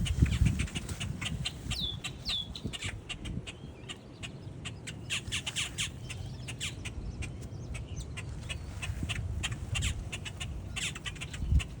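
A flock of common gallinules (Florida moorhens) clucking and calling, many short, sharp calls in quick succession, thickest in the second half. Two downward-sliding notes come about two seconds in.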